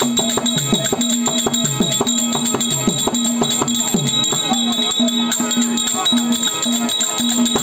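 Therukoothu street-theatre ensemble music: a held harmonium note sounding in repeated phrases, drum strokes that slide down in pitch, and a fast jingling metal rhythm over the top.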